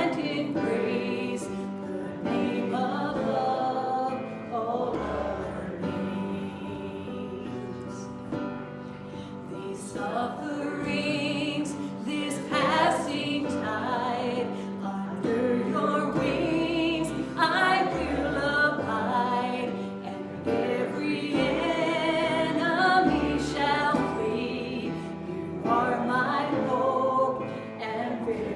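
Music with singing voices: a sung song with instrumental accompaniment.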